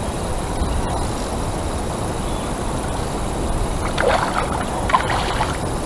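Steady low rumble of wind and moving river water, with two short splashy sounds about four and five seconds in.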